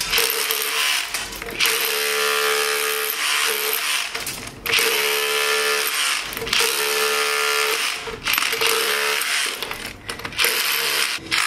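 DeWalt DCH263B cordless 20 V electro-pneumatic SDS Plus rotary hammer in chisel mode, its flat chisel hammering and chipping into a concrete block. It runs in several bursts with brief stops between them.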